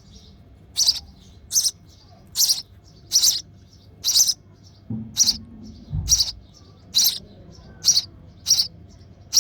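House sparrow chick chirping in the nest, begging for food: short, high chirps repeated steadily, a little more than one a second. A couple of low thumps near the middle.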